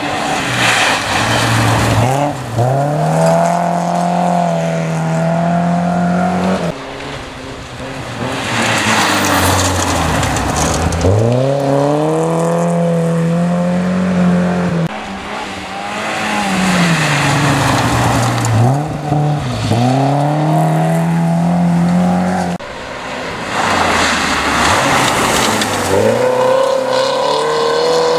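Rally cars on a gravel stage driving past one after another, about four passes in all. Each engine revs up and falls back at every gear change. The last car is a Volvo 240-series two-door.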